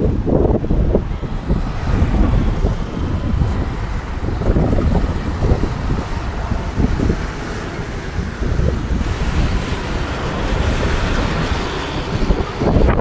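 Wind buffeting the microphone in uneven low gusts, with a steady hiss building about nine seconds in.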